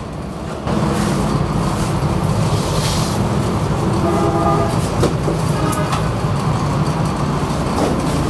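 A steady, low mechanical drone from a running motor, which comes in suddenly less than a second in and holds steady.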